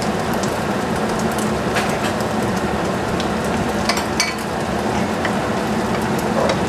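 Caramelized red onions and oil in a frying pan: a steady sizzle with scattered sharp pops. Near the end, a metal spoon goes into the pan.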